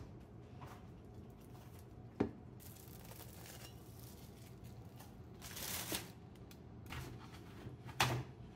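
Paper towel being handled and torn, with rustling and louder rips about six and eight seconds in, plus a sharp knock about two seconds in, over a low steady hum.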